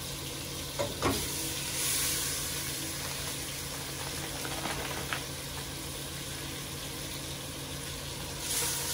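Seasoned oxtail pieces browning in hot oil in a pot, with a steady sizzle. The sizzle swells about two seconds in and again near the end as more pieces go in. A couple of sharp knocks on the pot come about a second in.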